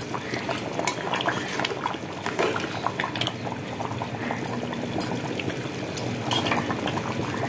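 Thin mutton curry gravy bubbling at a boil in an open aluminium pressure cooker as a perforated metal ladle stirs it, a steady bubbling broken by many small pops and clicks.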